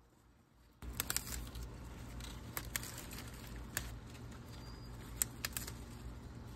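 Garden leaves rustling as they are handled, starting about a second in, over a low rumble, with several sharp clicks scattered through it.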